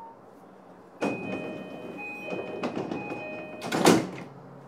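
Passenger doors of a JR East E233-5000 series train closing: the door movement starts suddenly about a second in, a repeating two-tone door chime sounds, and the doors shut with a loud thud near the end.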